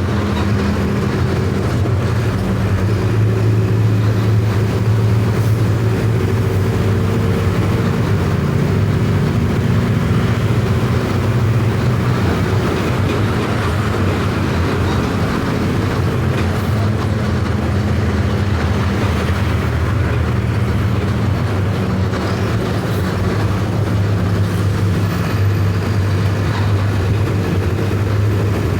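Mercedes-Benz OF 1519 bus's four-cylinder electronic diesel engine running under way, a steady low drone whose pitch shifts a little a few times as the bus drives on.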